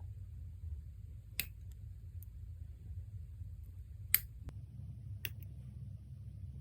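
A few sharp, separate clicks over a low steady hum, the loudest one about four seconds in.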